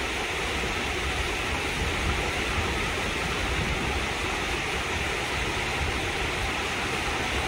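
River water rushing steadily, an even, unbroken flow.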